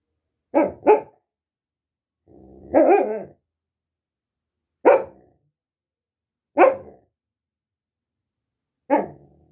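A dog barking: two quick barks, then a longer, rumbling bark with a low growl leading into it, then three single barks spaced about two seconds apart.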